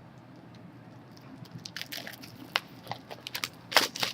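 Trading-card box packaging being handled and opened: irregular crinkles and clicks of plastic wrap and cardboard, sparse at first and busiest near the end.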